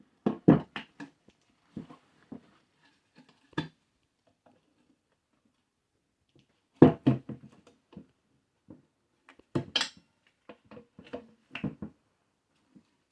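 Irregular knocks and clanks of tire irons and rim protectors against a motorcycle wheel rim as a tire bead is levered on by hand. The louder clusters come about half a second in, around seven seconds and around ten seconds in.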